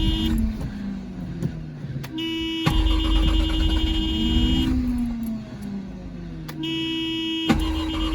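Mazda 12A rotary engine in a 1984 RX-7 being cranked on the starter after a dose of starter fluid, trying to fire but not catching. A steady buzzing tone cuts in and out three times, with clicks as it switches.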